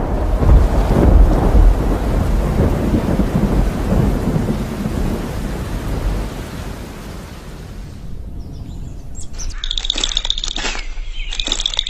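Rolling thunder over steady heavy rain, the rumble fading away over about eight seconds. Near the end, birds start chirping.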